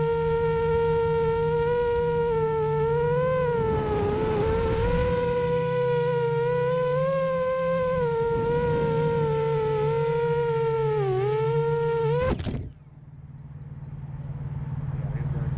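Racing quadcopter's Brother Hobby Avenger 2507 brushless motors spinning 6-inch tri-blade props, a steady high whine whose pitch dips briefly with throttle changes, then cuts off abruptly about twelve seconds in. A lower hum follows and swells toward the end.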